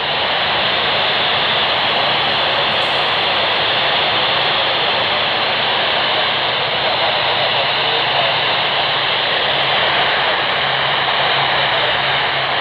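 Steady FM radio static from an amateur radio receiver tuned to the AO-91 satellite downlink, squelch open with no clear voice coming through. A faint low hum wavers under the hiss for part of the time.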